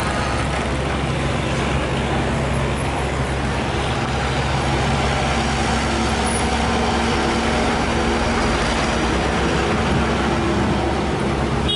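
Compact hydraulic excavator's diesel engine running steadily under load, with its hydraulics working as it lifts and swings a bucket of soil.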